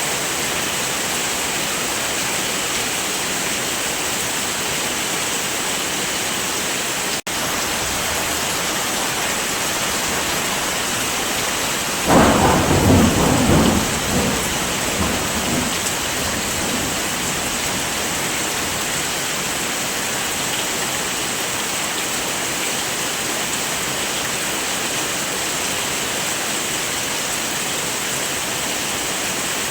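Steady heavy rain, with a clap of thunder about twelve seconds in that rumbles away over the next few seconds. The rain cuts out for a split second about seven seconds in.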